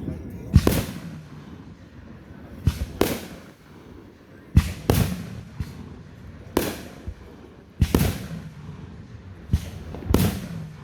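125-shot consumer fireworks cake firing shot after shot, about one every one and a half to two seconds. Each shot is a dull launch thump followed a moment later by a sharp aerial bang that trails off.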